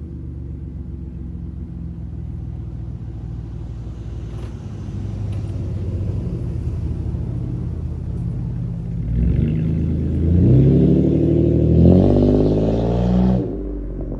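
Pontiac G6 GT's 3.5 L V6 running through its exhaust, idling steadily, then revved up about nine seconds in, held high, and let off shortly before the end.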